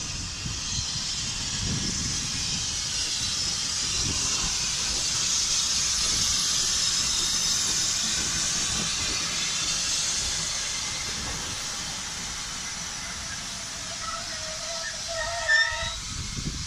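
Small 1916 Hudswell Clarke saddle-tank steam locomotive running slowly past with its train. A steady hiss of escaping steam grows loudest as the engine goes by, over the low rumble and knock of wheels on the rails. A short squeal comes near the end.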